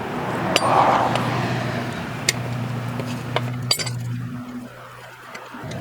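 Metal tools clinking and scraping as a car jack is set under the lift point and the hooked jack-handle wrench is picked up, a few sharp clinks spread out, over a steady low hum that stops near the end.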